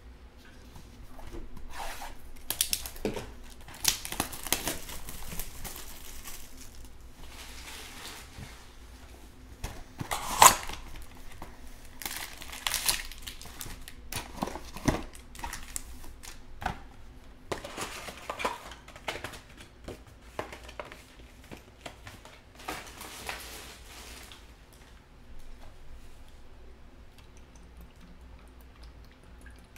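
Plastic wrapping crinkling and tearing as a sealed trading-card hobby box is opened, then its foil card packs rustling as they are pulled out and stacked, with one sharp crackle about ten seconds in. It quietens over the last few seconds.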